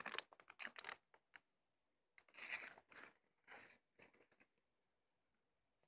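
Plastic bag of popcorn crinkling as it is handled, dying away within the first second, then three short, quiet rustling bursts around the middle, followed by a few faint clicks.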